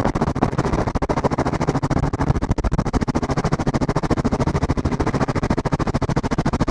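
Helicopter main rotor chopping fast and steady over a low engine hum, with heavy wind buffeting on the microphone held out of the open door.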